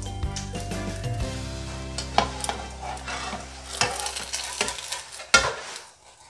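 Omelette sizzling in a nonstick frying pan while a metal spatula scrapes and knocks against the pan, with a few sharp clacks, the loudest near the end.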